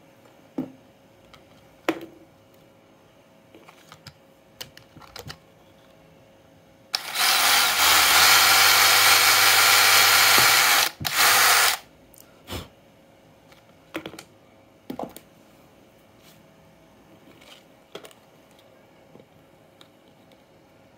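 Electric hand drill running for about five seconds as it bores out the centre hole of a plastic fan-blade hub, with a brief break near the end. Before and after it, a few sharp clicks and knocks from handling the blade and motor.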